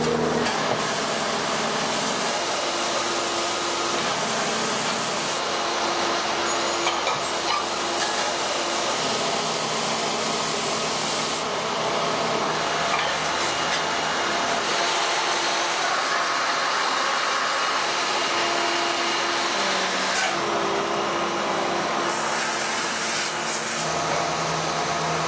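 Compressed-air spray gun hissing as it coats aluminium pans, over the steady hum of a spray-booth extraction fan. The high hiss switches on and off every few seconds.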